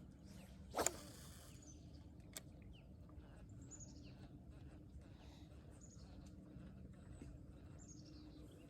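Quiet outdoor ambience with faint, high bird chirps that glide downward, repeated a few times over a low steady hum. A single sharp click comes about a second in.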